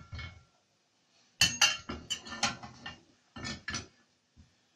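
Metal kitchen utensils clinking and knocking against a stovetop grill pan: a quick run of sharp clatters from about a second and a half in, then two more near the end.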